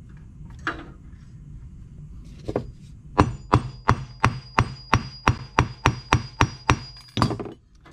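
Hammer striking a piece of wire hardware on the anvil of a bench vise to flatten it. A couple of single knocks come first, then a steady run of about a dozen blows, roughly three a second, with a faint metallic ring, stopping shortly before the end.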